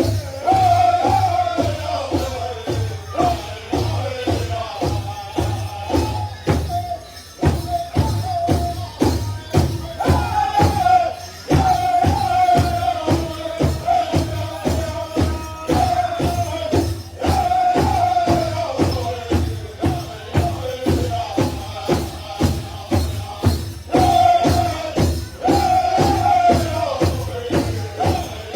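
Powwow drum group singing a chicken dance song: voices in high phrases that fall in pitch, repeated over and over, over a steady unison beat on a large powwow drum.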